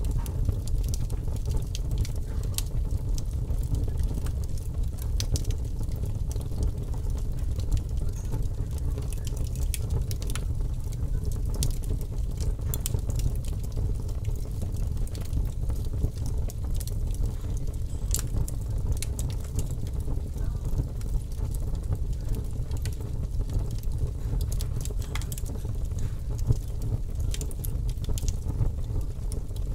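Fire crackling: irregular sharp pops and snaps scattered over a steady low rumble.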